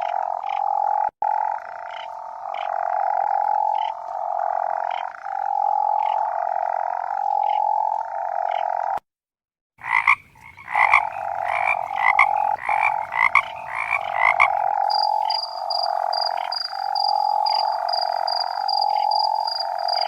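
Frogs croaking: a steady series of pulsed calls, each about a second long, broken off by a short silence about nine seconds in. After the break a higher, sharper call joins for a few seconds, and from about fifteen seconds a high, fast pulsing chirp runs under the croaks.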